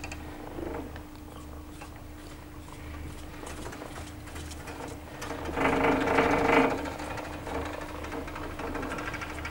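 Doppelmayr quad chairlift heard from a riding chair: a steady hum and fine mechanical rattle from the hauling rope and chair. About five and a half seconds in, a louder rattling rumble swells for about a second and then falls back.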